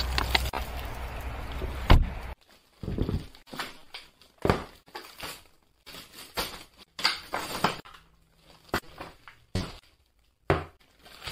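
A car's running rumble for about two seconds, ending with a loud thump. Then a string of separate knocks and thuds with short silent gaps between them.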